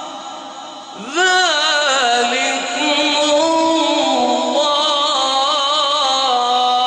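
A male Quran reciter chanting in melodic tajweed style. One phrase fades, then about a second in a new phrase begins with a rising glide and runs on as long, ornamented held notes with wavering pitch.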